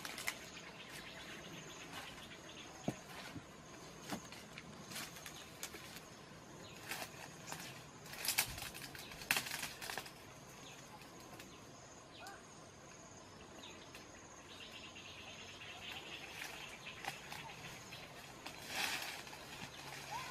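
Dry grass and brush crackling and rustling in irregular bursts as someone walks barefoot through scrub, over a steady high-pitched insect drone. The rustling is thickest in the first half, and a second, lower insect sound joins about three quarters of the way in.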